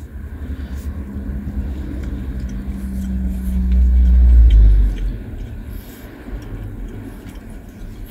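A work truck with a ladder rack drives past, heard from inside a parked car: a low rumble that builds, peaks about four to five seconds in, then fades away.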